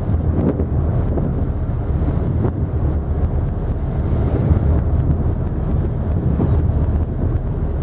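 Wind buffeting the microphone on the deck of the Mersey ferry Snowdrop under way, over a steady low rumble from the ferry and the wash of its wake.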